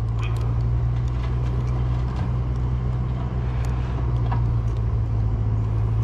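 Steady low rumble throughout, with a few faint clicks.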